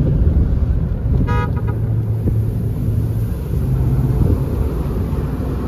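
Strong wind buffeting the microphone as a steady low rumble, with one short beep about a second and a half in.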